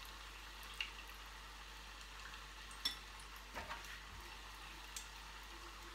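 Squash fritters sizzling in a small pot of deep-frying oil, a steady crackling hiss with a few light clicks scattered through it.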